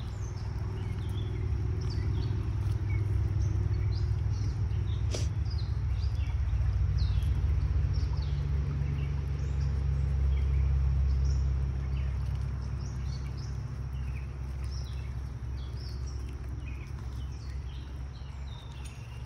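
Wind buffeting the phone's microphone as a loud, uneven low rumble, with small birds chirping in many short calls throughout. A single sharp click about five seconds in.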